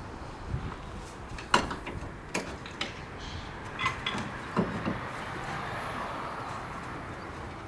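Metal tools and car parts clinking and knocking, five or six scattered sharp knocks over a steady background hiss, as work goes on under a car.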